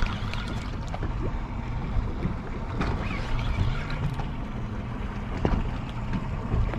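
Boat engines idling with a steady low rumble, wind on the microphone, and a few light clicks while a spinning reel is cranked against a hooked fish.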